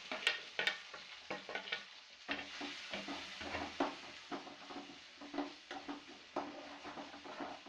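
Chopped tomatoes and green chilies sizzling as they fry in hot tempering oil in a small kadai. A steel spoon stirs them, scraping and clicking against the pan many times.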